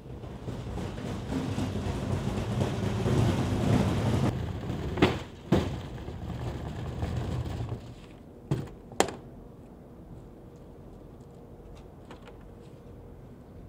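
A large plastic hard case dragged scraping across a concrete floor for about eight seconds, with a couple of sharp knocks partway through. Then two more sharp knocks and clicks as it is set down and opened, followed by quiet handling.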